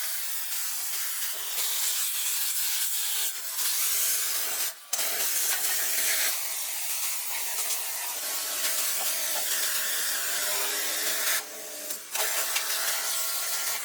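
A steady, loud hiss like a spray of air or liquid, cutting out briefly twice, about five seconds in and again near twelve seconds.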